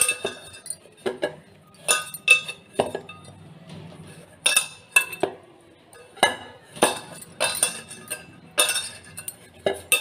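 About a dozen irregular clinks and knocks of a mixing bowl as dough is kneaded by hand in it, each knock ringing briefly.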